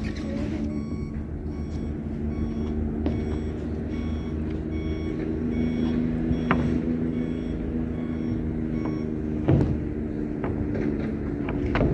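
A vehicle's reversing alarm beeps about twice a second over a steady engine hum, and stops near the end. A few sharp knocks come from the roofing work.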